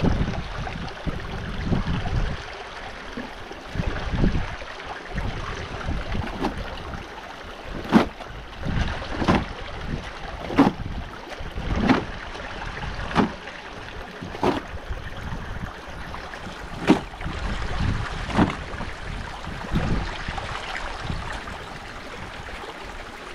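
River water rushing steadily, with wind gusting on the microphone. From about eight seconds in comes a run of regular slaps or thumps, roughly one every second and a half.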